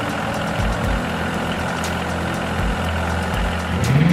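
Tractor engine idling steadily, with a sound rising in pitch just at the end.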